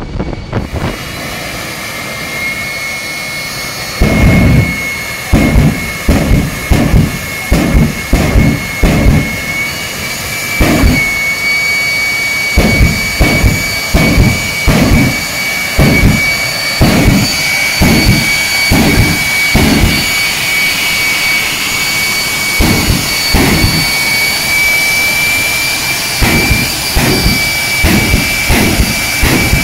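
Jet engine of the Bone Shaker jet truck running with a steady high whine. From about four seconds in, deep pulses of engine noise come in quick succession, about one or two a second.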